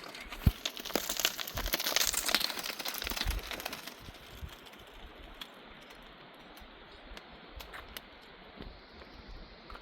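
Dry brush and twigs crackling and snapping in a dense run of sharp clicks for about three seconds, then fading to a few scattered clicks.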